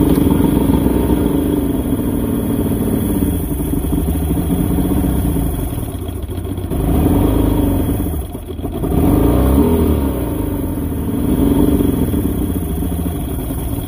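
Three-carburettor Mercury two-stroke outboard running out of the water, revving up and back down twice, then stopping near the end. It is being run in short bursts with no cooling water to burn the remaining fuel out of the carburettors for winter storage.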